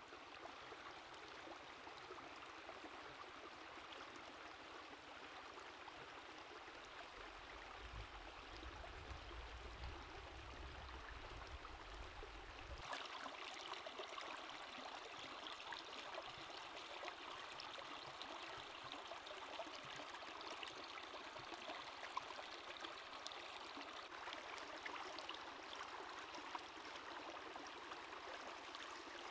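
Shallow rocky stream running steadily over stones. A low rumble sounds for a few seconds before the middle. From a little before halfway through, the water sound is brighter, with small splashes of hands washing a squid in the current.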